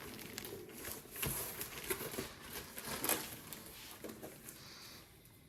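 Soft rustling and light knocks of paper and cardboard packaging being handled as the instructions are pulled from the 3D printer's box, a little louder about a second in and again around three seconds.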